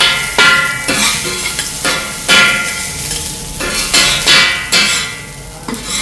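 Metal spatula and scraper clanking and scraping on a steel flat-top griddle as fried rice is chopped and turned, about eight sharp, uneven clanks, each with a metallic ring.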